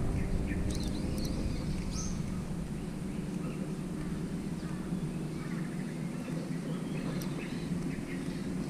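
A low steady rumble with a few short, faint bird chirps in the first two seconds.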